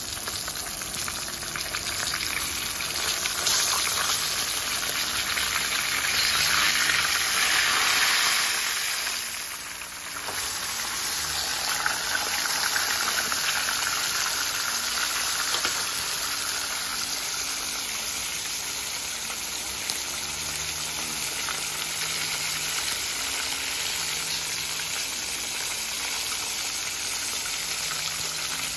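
Whole tilapia frying in hot oil in a pan: a steady sizzle of the oil, louder in the first third, dipping briefly about ten seconds in, then running on evenly.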